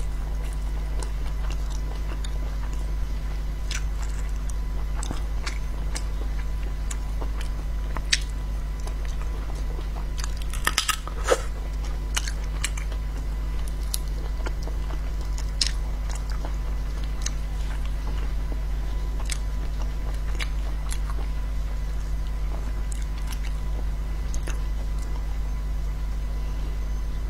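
Close-up eating sounds: chewing and biting on spicy sea snails, with scattered sharp clicks of the shells being handled and picked, a quick cluster of them about eleven seconds in. A steady low hum runs underneath.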